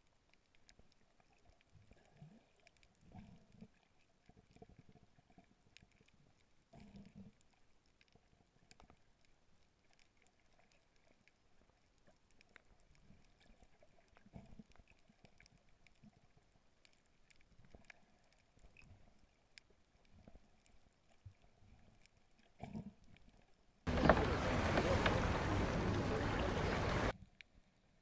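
Faint underwater sound picked up by a camera held below the surface: soft bumps and faint clicks. About 24 seconds in, a loud rushing noise starts suddenly, lasts about three seconds and cuts off abruptly.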